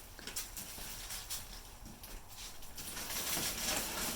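Cardboard shipping box being worked open: scraping and rustling of cardboard, growing a little louder near the end.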